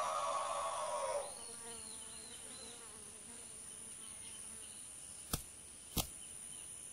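A loud, buzzy, slightly falling elephant cry that cuts off about a second in, followed by a faint wavering wail. Two sharp clicks come near the end.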